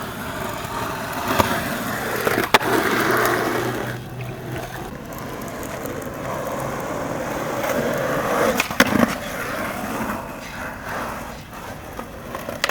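Skateboard wheels rolling over pavement, with sharp clacks of the board about 1.5, 2.5 and 9 seconds in.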